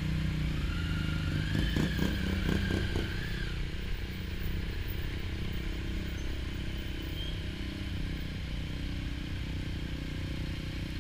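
Motorcycle engine running at low speed in slow traffic, a steady low drone. Between about one and three and a half seconds in, a higher engine whine rises and falls as a bike accelerates.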